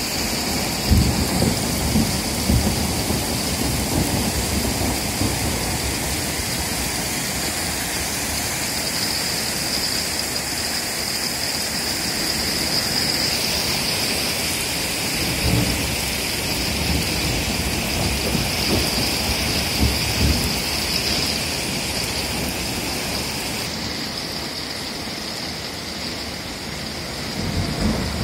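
Heavy rain mixed with hail pouring onto parked cars and pavement: a steady hiss, with low rumbles now and then.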